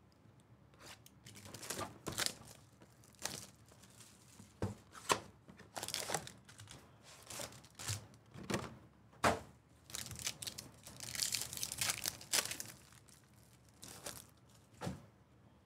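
Plastic wrapping of 2020 Prizm football card packs being torn open and crinkled: irregular rips and rustles with sharp snaps, and a longer crinkling stretch past the middle.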